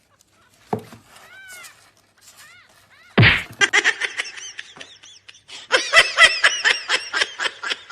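A person laughing in repeated rapid bursts, beginning a little after three seconds, with a thump about a second in.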